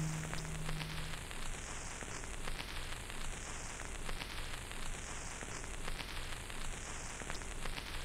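The last guitar note of the song dies away during the first second, leaving a steady crackling hiss with scattered clicks, like old-record or film static.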